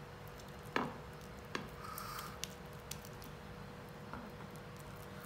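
Spatula pressing and smoothing a sticky cooked date mixture into a glass dish: faint squishing, with a few light taps and scrapes of the spatula against the glass.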